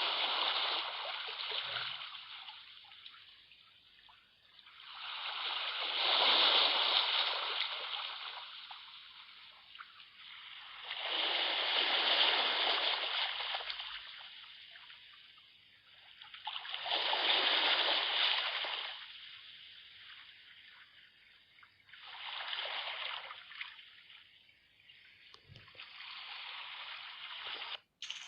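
Sea waves washing onto a shore: a hiss of surf that swells and fades away about every five to six seconds, six waves in all. The sound drops out for a moment just before the end.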